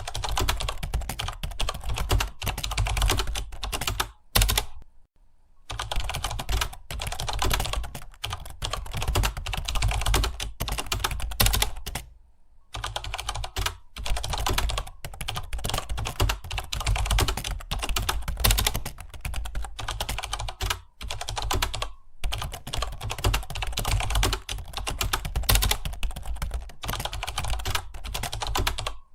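Fast typing on a computer keyboard: a dense, continuous stream of keystrokes, broken by a few brief pauses, the longest about a second long, around a sixth of the way in.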